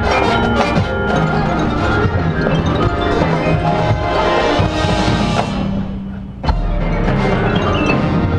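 Marching band playing, brass with mallet percussion such as marimba and xylophone. The music thins and fades about six seconds in, then the full band comes back in on a sudden loud hit with a low held note.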